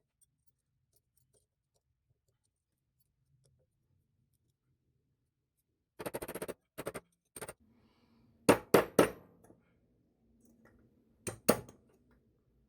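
Hammer striking a retaining ring to drive it down into its groove in a drill press vise: near silence for about six seconds, then a run of sharp metallic taps and knocks. The loudest are three hard strikes in quick succession, with two more a couple of seconds later.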